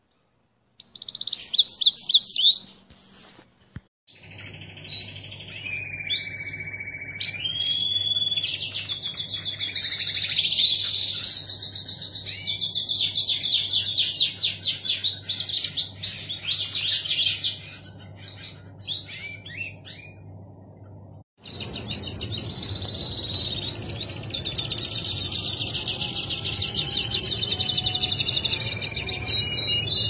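Male canaries singing long, rapid, high-pitched rolling trills and warbles. The song comes in several spliced stretches with brief breaks, one a few seconds in and another about two-thirds of the way through.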